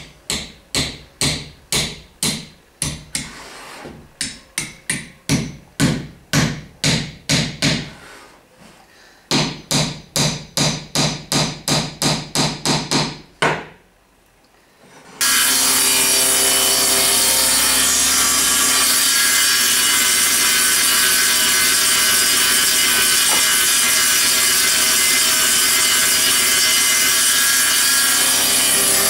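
A hammer strikes a chisel about twice a second, chopping the blade opening into a wooden plane body. There is a short pause about eight seconds in, and the strikes stop at about fourteen seconds. From about fifteen seconds a table saw runs steadily and loudly.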